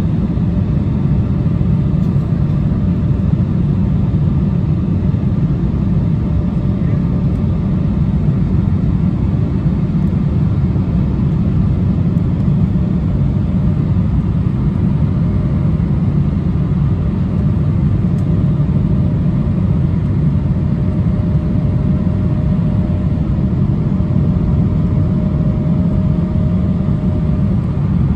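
Cabin noise of an Embraer 175 airliner in flight, heard from a window seat over the wing: a steady rumble of airflow and its General Electric CF34 turbofan engines, with a faint steady whine over it.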